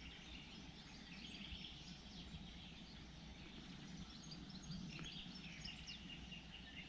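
Faint songbirds chirping and warbling in scattered short phrases over a steady low background rumble.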